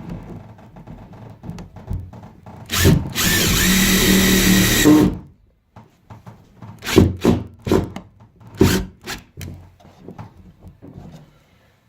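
Power drill running in one steady burst of about two and a half seconds, a few seconds in, then winding down. Afterwards come several sharp knocks and clicks of the tool and parts being handled.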